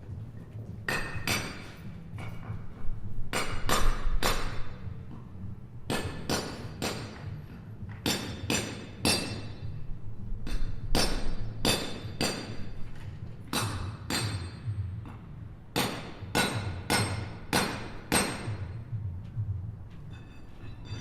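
Hammering at a construction site: sharp, ringing hammer strikes about two a second, in runs of three to five with short pauses between, over a steady low hum.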